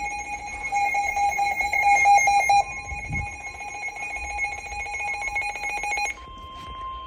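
Emergency alert tones from a weather radio announcing a warning. A shrill electronic alarm pulses rapidly until about six seconds in, then switches abruptly to one steady lower tone, the warning alarm tone that comes before the spoken Special Marine Warning.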